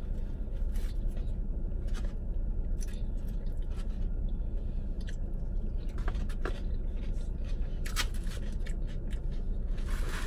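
Eating sounds from a fork scraping and tapping in a plastic takeout container and chewing of fried chicken, a scatter of short clicks. Under them runs a steady low rumble inside the car cabin.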